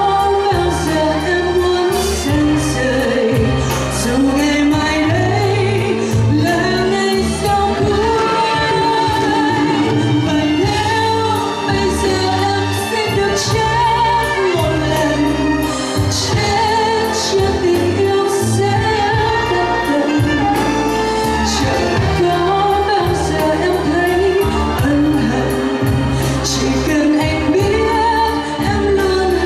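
A woman singing into a microphone, backed by a live band with a drum kit and bass; the sung melody wavers with vibrato over steady bass notes and regular cymbal strikes.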